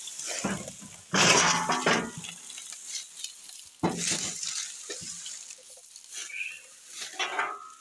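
Burnt, smouldering wiring harness of a Fiat 480 tractor hissing and crackling, in irregular bursts with clicks, the loudest rush about a second in.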